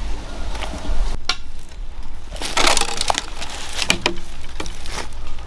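Footsteps crunching through dry bamboo leaves and twigs, with sharp snaps and cracks, the densest crunching a little after halfway.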